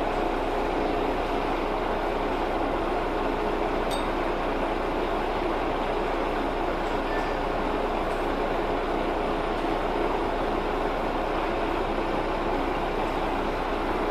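Metal lathe running at low speed while a brazed carbide tool bit takes a light finishing cut in a bore: a steady machine hum.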